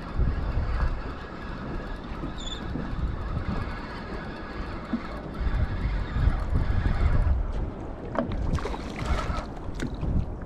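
Wind buffeting the microphone on a small boat while a small fish is reeled in, with a steady hum underneath. About eight seconds in comes a louder burst of scuffing and clattering as the catch is brought aboard.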